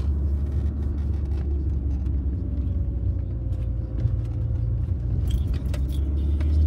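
Car interior road noise heard from inside the cabin while riding: a steady low rumble, with a few light clicks about five seconds in.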